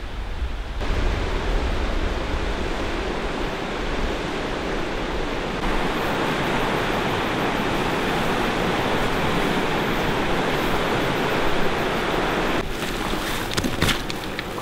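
Steady rushing of a river, rising and falling between shots, with a few crunching footsteps of boots on a dirt and gravel slope near the end.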